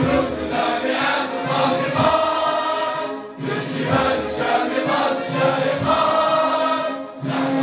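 A large group of men singing together in unison, held phrases with a short break about three seconds in and again near the end.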